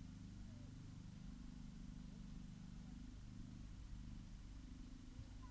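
Faint outdoor ambience: a steady low rumble with a murmur of distant voices from a large crowd. No fireworks are bursting.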